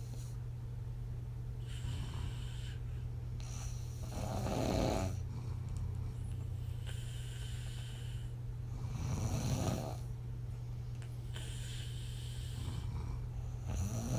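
A woman snoring in her sleep while lying on her back, puffing air out through loose lips on each exhale. The breaths are slow and even, about five seconds apart, and the lip puffs are the loudest moments, over a steady low hum.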